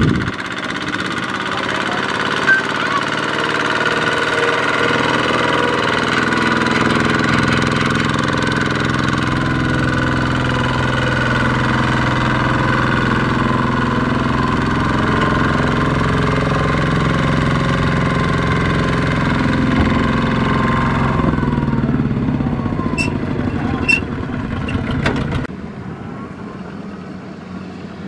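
Single-cylinder diesel engine of a two-wheel power tiller running steadily under load as it hauls a loaded trailer through mud, with a knocking beat. Its note changes a few seconds before the end, with a couple of sharp clicks, and then the sound drops to a lower level.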